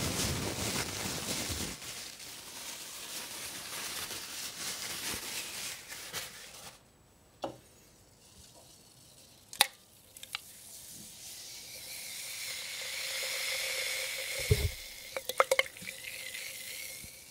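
Crackling hiss that fades out after about seven seconds, a few faint clicks, then a hand reaching for paper euro banknotes: a low thump and a quick run of sharp crinkles near the end.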